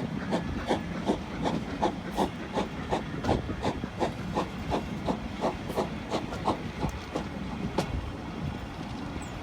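Steam train passing with a steady rhythmic beat, about three a second, over a rumble and hiss; the beat fades away about seven seconds in.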